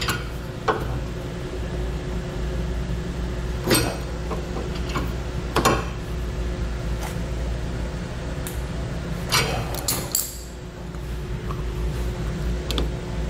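Sharp metallic clinks of a steel socket extension with an 11 mm socket knocking against the base plate's connector bracket as it is levered down to bend it, about eight separate clinks over a steady low hum.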